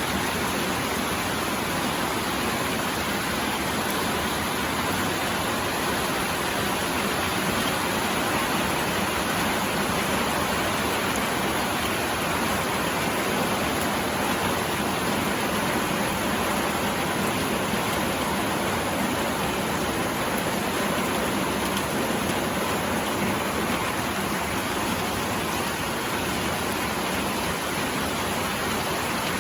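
Steady rain falling on a roof, an even, unbroken hiss with no separate drops or thunder standing out.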